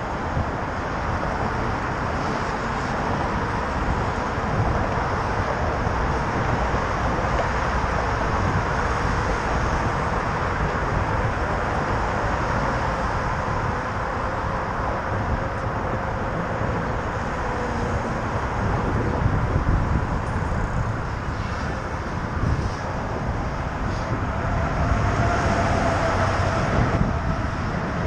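Wind rushing over a helmet-mounted camera's microphone while cycling, with road traffic running alongside; a steady noise that swells a little in the last few seconds.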